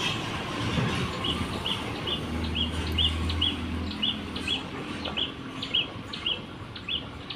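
A small bird chirping in a steady series of short, high chirps, about two or three a second, over the low hum of an engine running.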